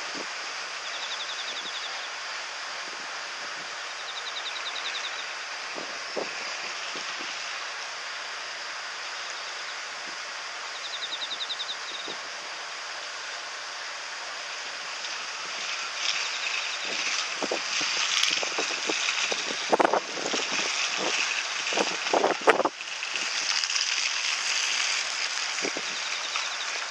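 Outdoor wind rushing over the microphone, gustier and louder from about 16 seconds in, with a few short knocks and clicks. Three brief high chirring trills sound in the first dozen seconds.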